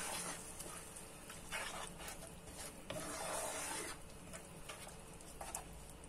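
Wooden spoon stirring and scraping a thick tomato and onion mixture around a pot, faint rasping strokes at an uneven pace.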